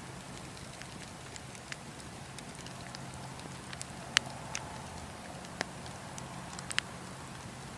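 Fire burning with a low steady rumble and scattered sharp crackles and pops, the loudest pop about four seconds in.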